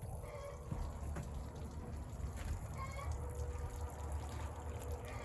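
Water running steadily, with a few short, faint chicken calls.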